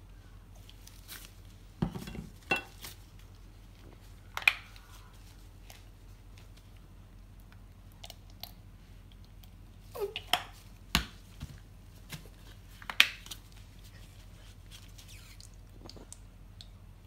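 Plastic sauce squeeze bottles being squirted over tortillas and handled on a wooden table: scattered short squirts, clicks and knocks, a dozen or so, with gaps between.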